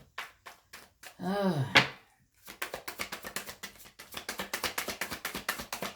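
A deck of tarot cards being shuffled by hand: a steady run of rapid card-flicking clicks that starts about two and a half seconds in. Before it comes a brief hummed vocal sound with a rising and falling pitch.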